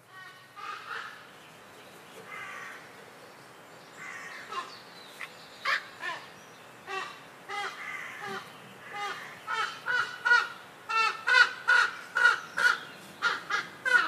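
A large black corvid of the crow family giving a run of harsh caws. They are soft and spaced at first, then grow louder and quicker, about two or three calls a second in the last few seconds.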